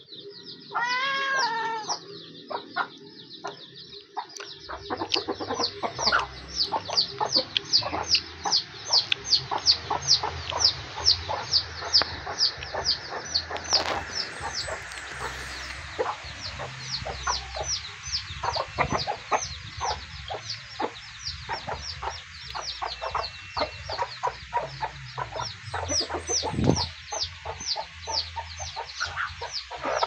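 Domestic chicks peeping continuously in quick high falling cheeps, about three a second, with hens clucking beneath. A cat meows once about a second in.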